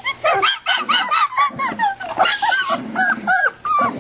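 Puppies yipping and whimpering, a rapid run of short high-pitched calls, several a second.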